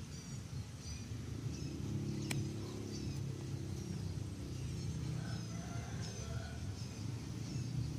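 Outdoor ambience: a steady low rumble with repeated short, high chirps from small birds, and one sharp click about two seconds in.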